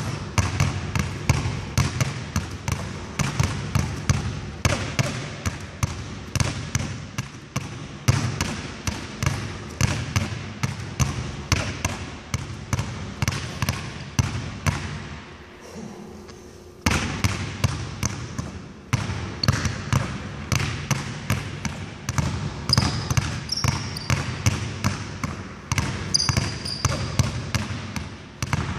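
Two basketballs dribbled at once on a hardwood gym floor: a fast, steady patter of bounces that stops for about a second and a half midway, then picks up again.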